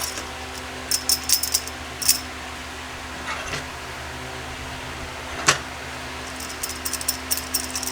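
Light metallic clinking and rattling as a bent aluminium tent pole is handled and worked straight, in two bursts, with one sharp knock about five and a half seconds in, over a steady low hum.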